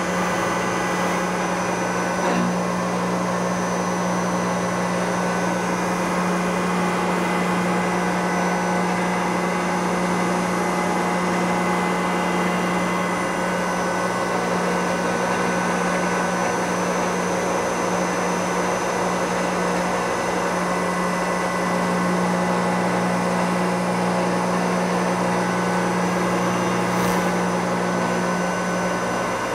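Supermax YCM-40 CNC knee mill cutting aluminium with an end mill: the spindle runs at a steady hum under the hiss of a mist coolant spray, with no change in the sound.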